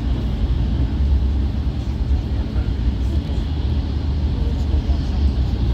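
Steady low engine and road rumble heard from inside a moving bus.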